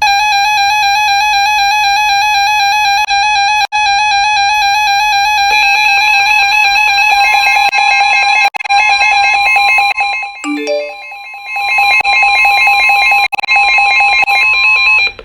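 Emergency alert tone on a weather alert receiver, announcing an incoming flash flood warning: a loud, steady electronic alarm tone that starts and stops abruptly. A second, slightly higher tone joins it about six seconds in, and it dips briefly around ten to eleven seconds.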